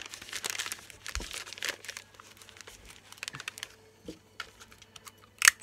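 Magazine and newspaper pages being crumpled and rustled together in the hands: dense crackling for the first two seconds, then sparser crinkles, with a sharp loud crackle just before the end.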